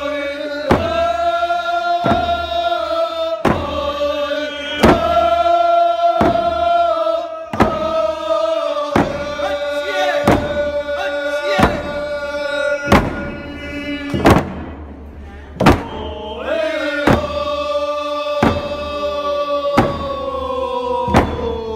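Nuu-chah-nulth paddle dance song: a group of voices singing long held notes in unison over hand-held frame drums struck together in a slow, steady beat, about one stroke every second and a half. Near the end the sung note slides down in pitch.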